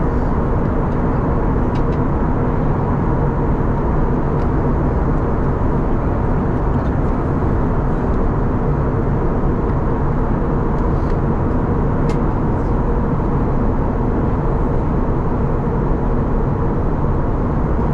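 Steady cabin drone of an Airbus A321neo in descent, heard from a window seat beside the engine: engine noise and rushing airflow with a faint steady hum, and an occasional faint click.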